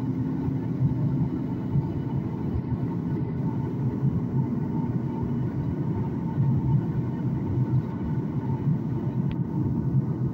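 Steady cabin noise inside a Boeing 737 MAX 9 on approach: a low, even rumble of engines and airflow, with a faint steady hum.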